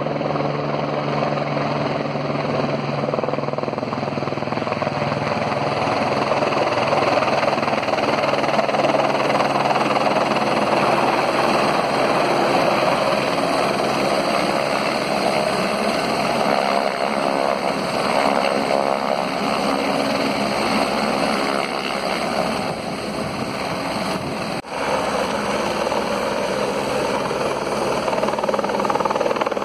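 Firefighting helicopter hovering low over a river while its slung bucket fills with water: the steady beat of the rotor and the turbine engine's running, with a brief drop in level about three-quarters of the way through.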